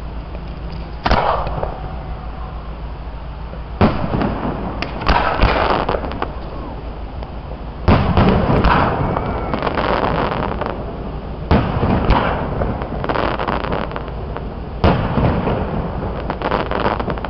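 Aerial firework shells bursting: about six sharp booms a few seconds apart, each trailing off over a second or two.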